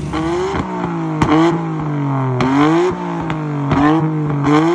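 Nissan Skyline R33 GT-R's RB26DETT twin-turbo straight-six, heard at the exhaust, being revved up and down several times, with several sharp cracks among the revs.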